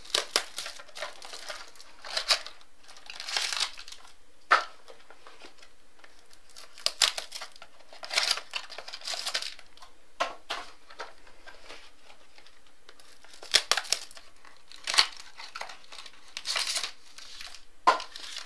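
Cardboard mini boxes of trading cards being sliced open across the top and handled: intermittent crinkling and scraping rustles with a few sharp clicks.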